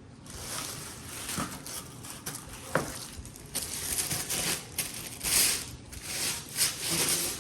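Plastic packaging wrap crinkling and rustling in irregular bursts as a speaker-stand column is unwrapped, loudest in the second half, with a couple of short knocks that ring briefly.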